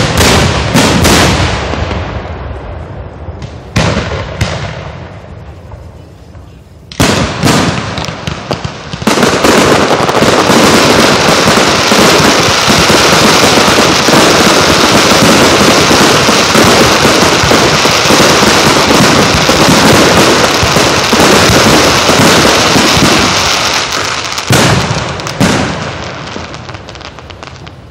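Aerial fireworks shells bursting overhead at close range: a few single loud bangs some seconds apart. From about nine seconds in comes a dense, unbroken barrage of bangs and crackle lasting about fifteen seconds. Near the end a last few bangs die away.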